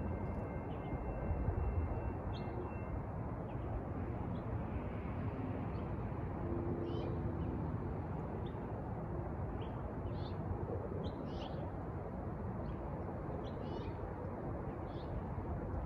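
Small birds chirping in short, scattered calls over a steady low rumble of street background. The railroad crossing's warning bell, a steady ringing tone, stops about three seconds in.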